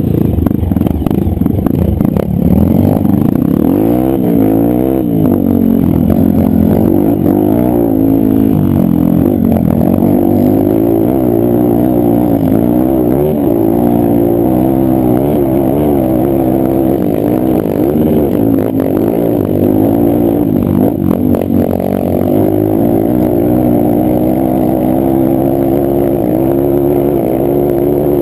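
Honda CRF dirt bike engine being ridden, its revs rising and falling every second or two as the throttle is worked, with a few short knocks.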